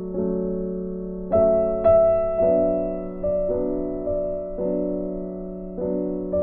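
Slow background piano music: held chords with new notes struck about every half second to second, each fading away, with a brighter higher note near the start.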